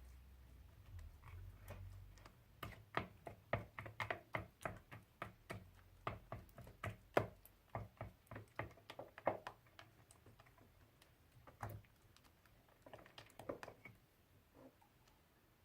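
Crunchy slime being squeezed and poked by hand: a run of sharp crackling clicks, several a second, thinning out to a few scattered pops near the end.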